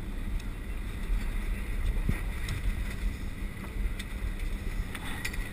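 Steady low rumble of an offshore party boat at sea, with wind on the microphone and a few faint clicks.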